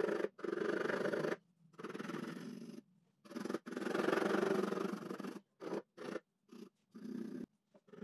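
Graphite pencil scratching across drawing paper in quick shading strokes: rasping stretches of about a second with brief pauses, breaking into short, separate strokes in the second half.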